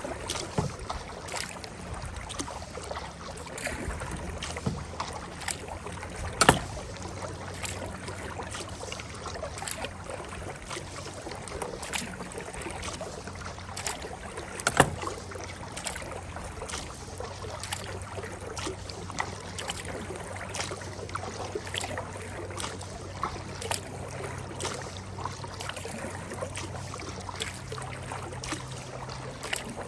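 Kayak paddling: the paddle blades dip and splash in the water in a steady rhythm of roughly one stroke a second. There are two louder knocks, about six and fifteen seconds in. A faint low hum runs underneath.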